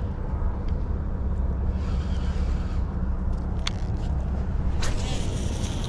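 A steady low rumble throughout, with two brief clicks about three and a half and five seconds in as a Penn Squall baitcasting rod and reel is cast.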